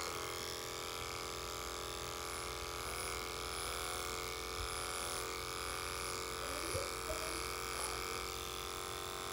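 Electric pet grooming clippers running with a steady hum as they shave through a dog's thick curly coat.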